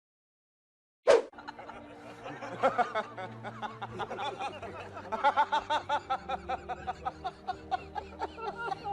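Silence, then a sharp hit about a second in, followed by a comic laughing sound effect over background music. The laughter comes in quick repeated bursts of about three to four a second, strongest in the second half.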